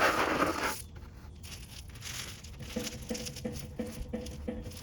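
A short burst of crunching, scraping noise that stops under a second in, then soft background music with a plucked, guitar-like pattern from about three seconds in.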